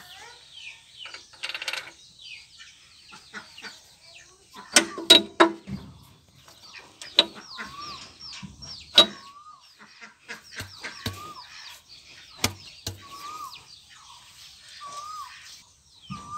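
Sharp metallic clanks and knocks of steel gear parts being handled in a Massey Ferguson tractor's open transmission housing, loudest about five and nine seconds in. Birds chirp throughout, and in the second half a short whistled call repeats every second or two.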